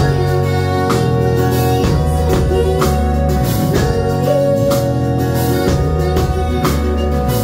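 Live band music: sustained electric keyboard chords over a drum kit with steady cymbal strikes, and a woman singing.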